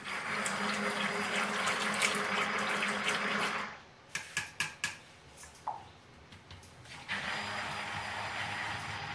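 Stick blender running in soap batter, stopping after about three and a half seconds; a few sharp clicks and taps follow as it is lifted out and moved, and it starts again about seven seconds in, now blending a small cup of pink-coloured batter.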